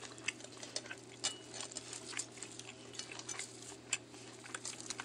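Scattered light clicks and taps of plates and tableware as food is handled at a meal, over a faint steady low hum.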